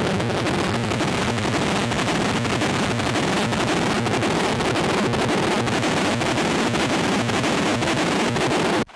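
Harsh, dense noise-music fuzz from a feedback-looper pedal driving a Sketchy Sounds Gorantula sub-octave synth fuzz, running steadily at full level and cutting out abruptly near the end.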